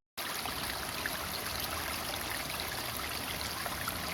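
Steady rush of flowing water, with small scattered ticks, after a brief dropout at the very start.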